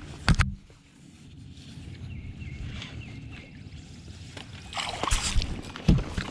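Knocks and handling noise in a bass boat as a freshly landed smallmouth bass is dealt with: two sharp knocks at the start, low rustling noise, then more movement and a couple of thumps near the end.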